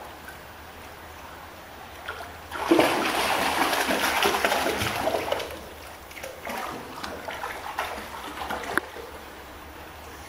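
Dogs wading through shallow water, their legs splashing. The splashing is loudest and densest for about three seconds starting around two and a half seconds in, then turns to lighter, scattered splashes over a low, steady trickle of water.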